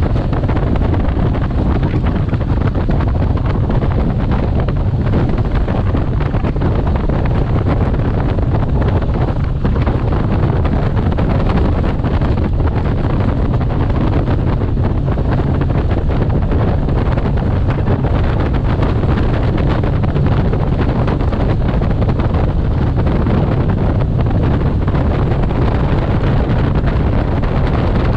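Heavy wind buffeting the microphone aboard a Falcon bass boat running fast across the water, with the boat's engine and hull noise underneath. Steady and loud, with the strongest energy low down.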